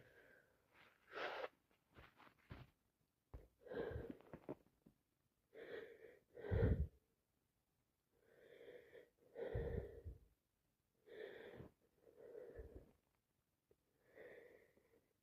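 Short, wheezy breathing sounds in about a dozen irregular bursts, each under a second long, separated by quiet gaps.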